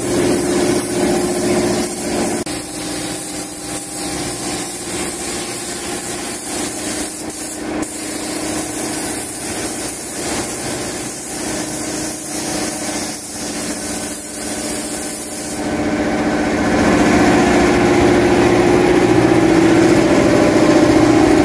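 Air-fed paint spray gun hissing steadily as it lays a light mist coat of paint on a van roof, with a steady motor hum underneath. About fifteen seconds in, the sound grows louder.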